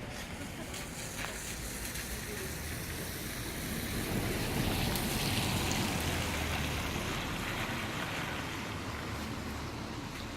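A motor vehicle going by: a steady rumble that swells to its loudest about halfway through and then fades.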